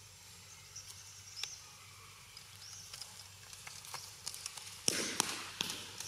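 Scattered rustles and scuffs of macaques moving over dry leaves and dirt, with a louder burst of scuffling about five seconds in. A short rising chirp recurs faintly in the background.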